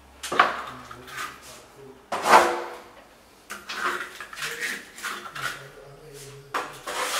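Plasterer's trowel scraping and smoothing wet skim plaster across a wall: a run of short, uneven swishing strokes, the strongest about two seconds in.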